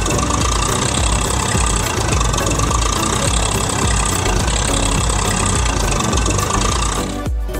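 Tractor engine running steadily, then stopping shortly before the end.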